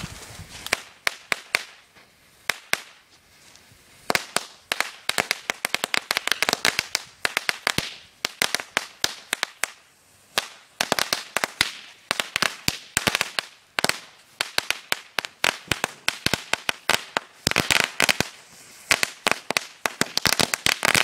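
Idena 200-shot mat of mini Chinese firecrackers going off: a long, irregular rattle of small, quiet bangs that come in quick clusters with short pauses between them.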